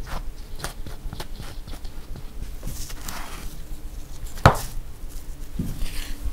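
Close-up kitchen prep sounds: a butter knife scraping across a slice of bread with small clicks, then one sharp knock about four and a half seconds in, likely the bread slice set down on the wooden board. Near the end a spoon knocks and scrapes while stirring filling in a glass bowl.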